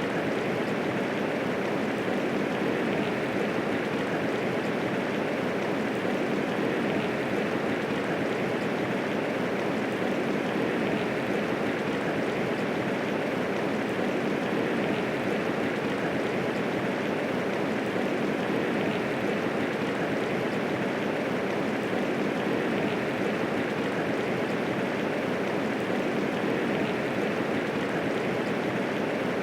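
Steady medium rainfall, a dense even hiss of falling rain with no thunder.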